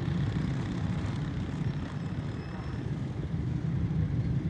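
Steady low vehicle rumble with no distinct events.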